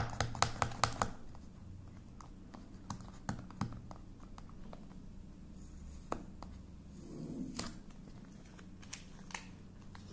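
Fingers picking at and opening a small cardboard DJI Mini 2 battery box: a quick run of sharp clicks in the first second, then scattered taps and light cardboard rustling and scraping.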